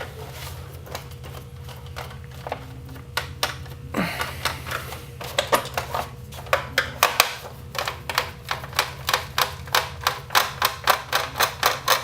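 Rapid plastic clicks and knocks from the body cover of a small electric RC race car being worked loose. Scattered at first, they turn into a quick run of clicks, about two to three a second, from around four seconds in.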